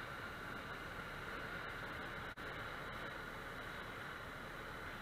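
Steady cabin drone of a single-engine light aircraft in flight, engine and airflow blended into an even noise, with a momentary break in the sound a little over two seconds in.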